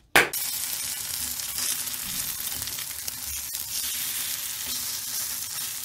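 Food frying in hot oil in a pan: a steady crackling sizzle that starts abruptly just after the beginning.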